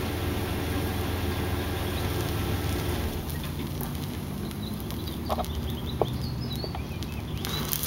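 A steady low hum, with faint short high chirps about halfway through and a rise in high hiss near the end.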